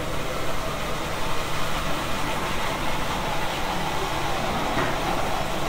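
Steady mechanical running noise of café machinery, a constant hum with a hiss over it that does not pause.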